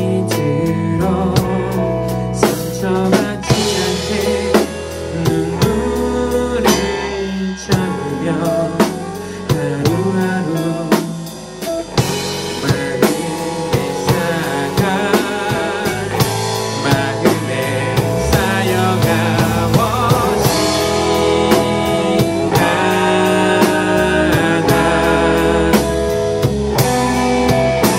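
Rock band playing live in rehearsal: drum kit, electric guitars and bass guitar in an instrumental passage, with a lead line that wavers in pitch. It drops briefly in level about eleven seconds in.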